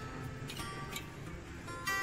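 Background music with plucked string notes ringing one after another.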